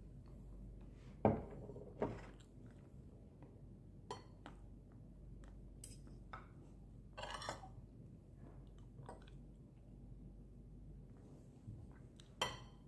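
Metal spoon and fork clinking and scraping against a plate. The clinks are scattered, a second or more apart, with the loudest about a second in and a short run of them past the middle.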